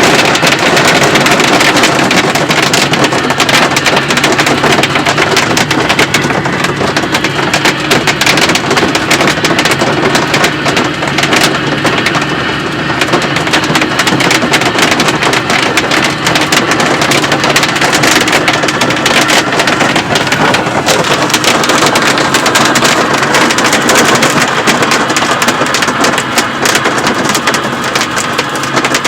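Large hail, up to baseball-sized, pounding down in a dense, continuous clatter of hard impacts.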